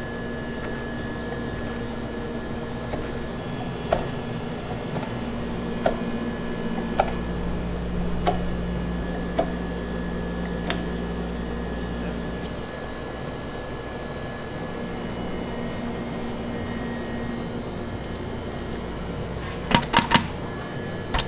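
A chef's knife cutting through laminated croissant dough, its blade tapping sharply on the stone countertop about once a second, over a steady machine hum. Near the end come three quick, louder knocks as dough is pressed into a metal baking tray.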